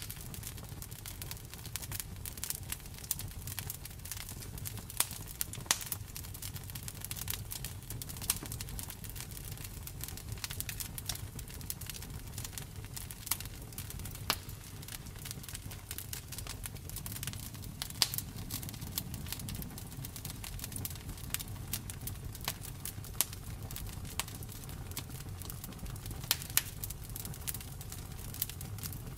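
Campfire crackling with a steady stream of sharp pops, a few of them louder, over a low steady rumble.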